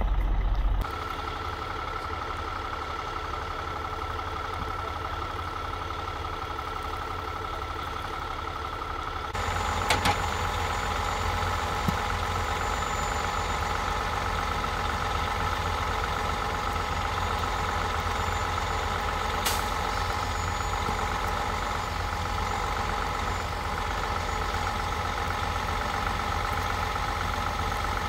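Heavy-duty tow truck's diesel engine running steadily, with a steady whine over it; it gets louder about nine seconds in.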